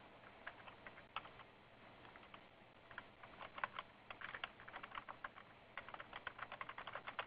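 Faint typing on a computer keyboard: quick key clicks, sparse at first, then two dense runs with a short pause between them, as a short line of text is typed.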